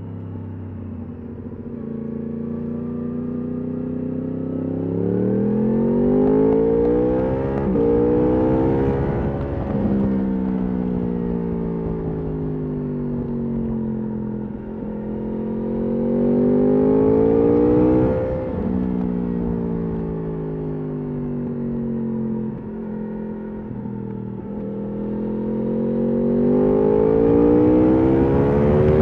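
Yamaha R1 RN22's crossplane inline-four with an Akrapovič exhaust under way. It revs up through the gears with sharp drops in pitch at each upshift, about a second apart early on and again around the middle. In between it eases off with the pitch sinking, then pulls hard and rises again toward the end.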